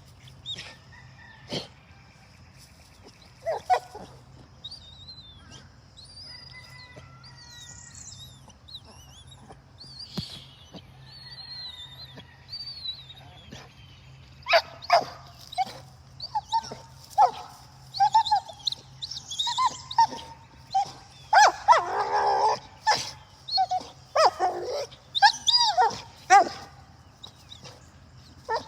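A dog whining in high, gliding squeaks, then, from about halfway through, breaking into a run of short yips and barks that grow louder and busier.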